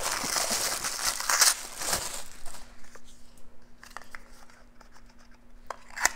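Paper wrapping crinkling and tearing as a small wrapped nail polish bottle is unwrapped, loud for about the first two seconds. After that come a few faint clicks and handling sounds.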